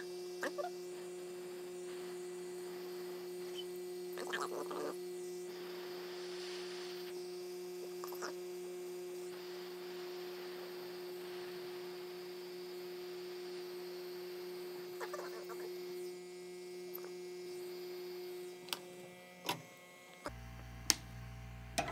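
Hot air rework station's blower running with a steady hum while hot air is played over 3D-printed plastic strands, with a few light clicks of handling. The hum cuts off near the end.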